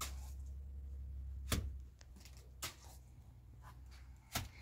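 Four sharp knocks or clacks of hard objects at irregular intervals, over a low hum that cuts out about two seconds in.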